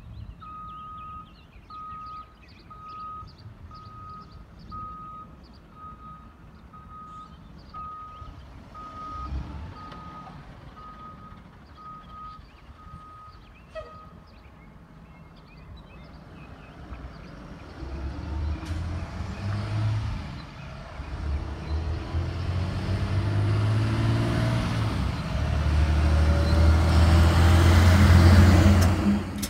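A truck's backup alarm beeping steadily, just over one beep a second, for about the first half. Then the bucket truck's 6.7-litre diesel engine comes in and grows louder as the truck drives up and passes close by near the end.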